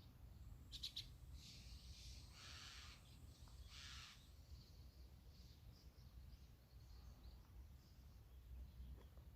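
Faint outdoor ambience with birds calling: a quick run of chirps about a second in, then two longer, rougher calls over the next few seconds, and faint chirps later, over a steady low rumble.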